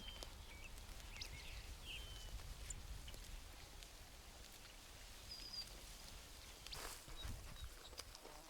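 Quiet pasture ambience: faint bird chirps and short trills over a low rumble of wind, with a brief rustle about seven seconds in.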